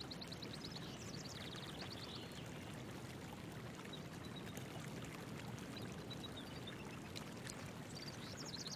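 Steady rush of flowing water, with short, high, rapid trills near the start and again near the end.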